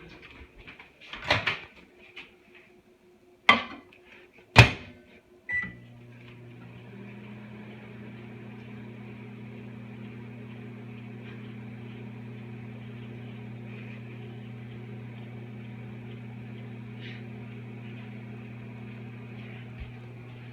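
A few sharp clacks, the loudest about four and a half seconds in, then a short beep, and a microwave oven starts up and runs with a steady hum.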